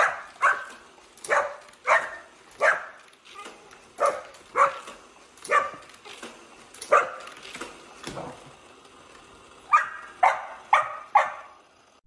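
Dog barking repeatedly in short, sharp barks, with a pause of about two seconds before a quick run of four barks near the end.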